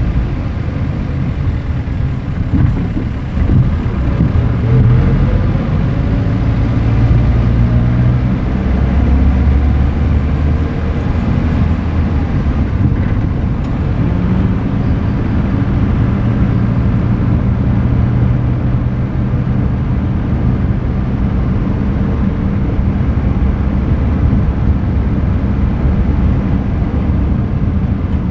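Vehicle driving along a road, recorded from outside: a steady low rumble of engine, tyre and wind noise. The engine note rises briefly a few seconds in.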